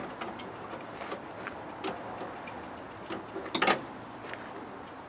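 Small metal clicks and taps from hand work on the brake servo's pushrod clevis and pin at the master cylinder, with a quick cluster of louder knocks about three and a half seconds in.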